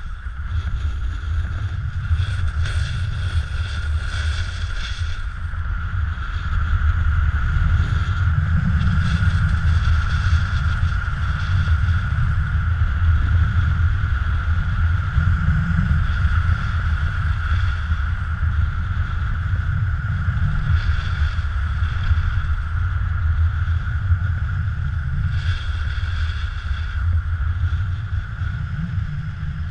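Wind rumbling over an action camera's microphone as a snowboarder rides down a groomed slope, with the board's edge hissing and scraping on the snow in patches through the turns. A steady high whistle runs underneath.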